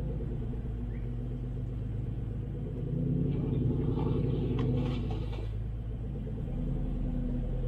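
Four-wheel-drive vehicle's engine running at low revs while crawling off-road, rising a little about three seconds in, with a few light knocks.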